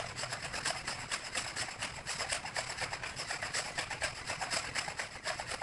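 Shake Weight spring-loaded dumbbell shaken rapidly, clacking in a fast, even rhythm many times a second.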